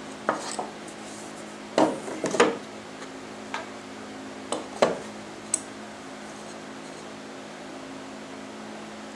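Wooden hand screw clamp and a turned wooden cylinder being handled on a cast-iron table saw top: scattered knocks and clicks of wood on wood and metal as the work is unclamped, turned and clamped again. The knocks come in little clusters during the first half, over a steady low hum.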